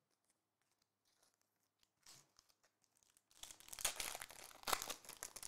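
Foil trading-card pack wrapper being torn open and crinkled by hand: a faint rustle about two seconds in, then about two seconds of dense crackling crinkling that runs on to the end.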